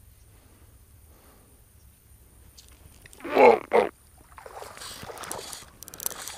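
A man's voice calls out twice in quick short syllables about halfway through, then a couple of seconds of rough splashing, scuffling noise while a small bass hooked on a fly rod is being played.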